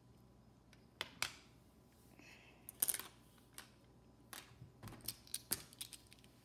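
Plastic Lego pieces clicking and tapping as they are handled and pressed together: a dozen or so sharp, irregular clicks.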